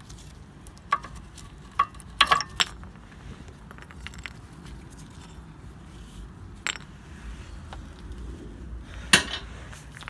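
Sharp metallic clinks and knocks as worn rear brake pads are worked out of a rusty caliper carrier. A cluster comes about two seconds in and the loudest clank comes near the end.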